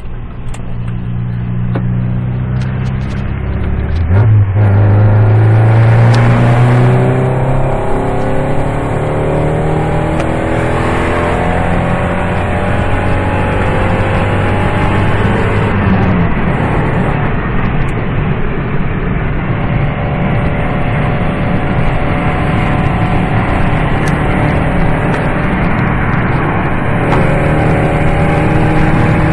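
Ford Focus 2.5 engine and exhaust running loud with a deep rumble. About four seconds in it revs up, with the pitch climbing as it accelerates. It then runs steadily, and climbs in pitch again twice later on.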